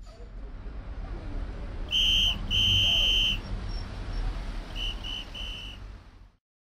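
A whistle blown: two longer blasts, then three short ones near the end, over a steady low rumble.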